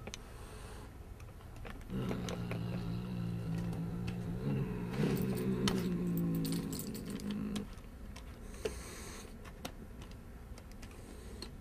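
A tinsel sparkle ball ticking and crinkling against a wooden floor as a cat bats at it. From about two seconds in until about seven and a half seconds, a loud low drone of several steady pitches lies under it.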